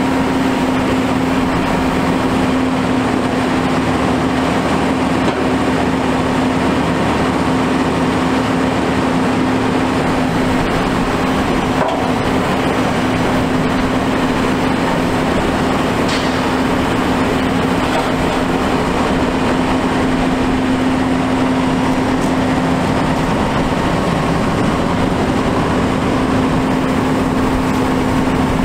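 Cummins ISM diesel engine of a 2010 Autocar Xpeditor grapple truck running steadily with a constant drone, powering the Prentice 2124 grapple's hydraulics.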